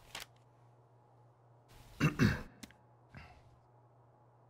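A man makes a brief two-part vocal sound with falling pitch about two seconds in, followed by a faint click, over a steady low hum.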